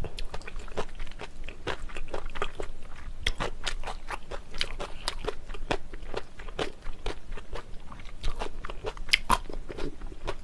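Close-miked eating of jjajangmyeon, black bean sauce noodles: wet chewing and mouth clicks, many quick ones in irregular succession.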